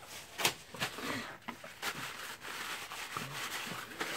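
Paper towel rustling and rubbing as gloved hands wipe the metal barrel of a DeWalt D25123 rotary hammer drill, in irregular scuffs with a few sharp clicks of the part being handled.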